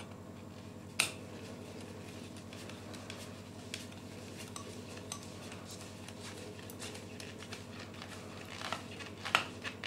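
Screwdriver turning the screw of a metal earth bonding clamp on a copper water pipe: scattered small metallic clicks and scrapes, with a sharper click about a second in and a few more near the end.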